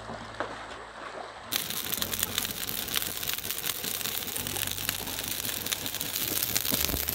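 Dense crackling, rustling noise full of small clicks, starting abruptly about a second and a half in.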